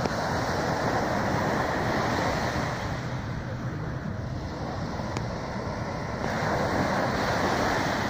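Small sea waves breaking and washing up a sandy beach: a steady rush of surf that swells a little near the end.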